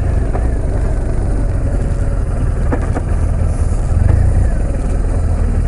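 BMW R 1200 RT motorcycle's flat-twin boxer engine running steadily at low speed.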